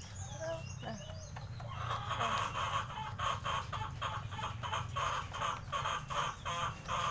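Chickens clucking: a few short calls at first, then from about two seconds in a steady run of clucks, about two or three a second.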